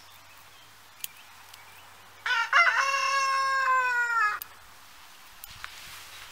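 A rooster crowing once: a single call of about two seconds that starts about two seconds in and drops off at its end. A sharp click about a second in.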